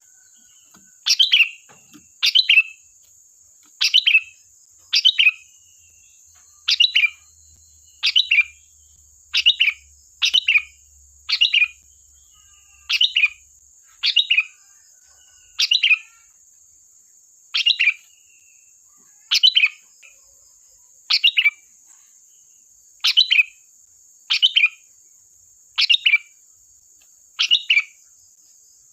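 Sooty-headed bulbul (kutilang) giving short, sharp calls over and over, about one every second and a half. A steady faint high hiss runs underneath.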